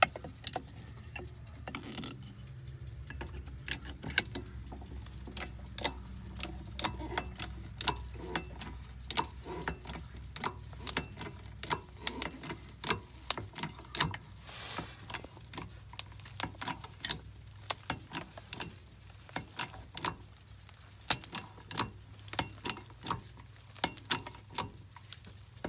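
Pittsburgh 8-ton hydraulic bottle jack being pumped by its handle, lifting a mobile home's steel frame to level it: a string of irregular sharp clicks, about one or two a second, over a low steady hum.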